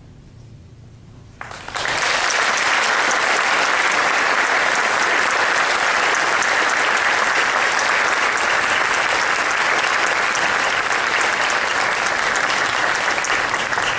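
Audience applauding, starting suddenly about a second and a half in and going on steadily and loudly; before it, the faint tail of the band's last low note.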